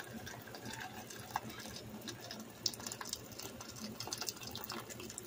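Steaming-hot water from an electric kettle pouring in a steady stream into a stainless steel pot of chopped vegetables, splashing and gurgling into the liquid with small scattered spatters.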